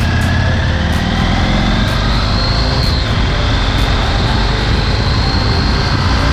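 Motorcycle riding at speed: engine running under load with heavy wind rumble. The engine note climbs, dips about three seconds in, then climbs again.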